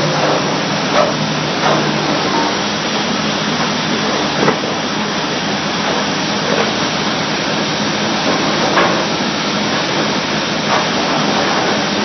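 Vulcan #2 air/steam pile hammer rig hissing steadily, with about six short knocks spaced irregularly one to two seconds apart.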